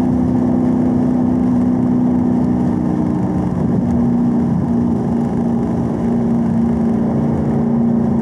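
Chevrolet Camaro engine running steadily at about 3,500 rpm in third gear at track speed, heard from inside the cabin with road noise.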